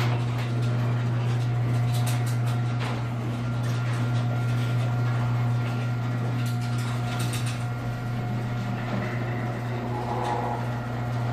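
Garage door opener motor running steadily as it drives the door down on its newly replaced, greased drive gear, a constant hum with occasional clicks and rattles, cutting off at the end as the door closes.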